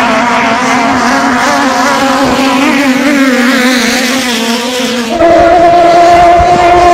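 Engines of long-tail racing boats running flat out, their pitch wavering. About five seconds in the sound cuts to a single engine holding a steady high note, louder.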